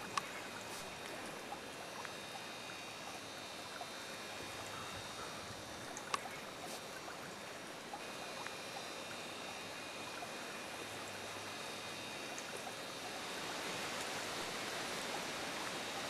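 Steady rushing background noise, like running water, with faint steady high-pitched tones and two or three sharp clicks; it grows louder about thirteen seconds in.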